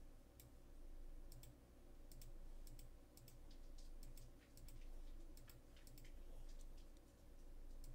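Faint computer mouse clicks, many of them, some in quick pairs like double-clicks, over a low steady hum.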